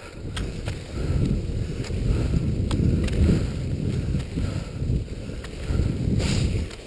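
Skis gliding on snow during a skate-skijoring run, with wind buffeting the microphone in an uneven low rumble. Thin clicks come now and then.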